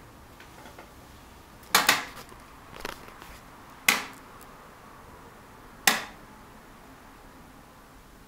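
AEG Lavamat washing machine at the end of its rinse-and-spin, giving sharp clicks about two seconds apart: a double click, a fainter one, then two single clicks.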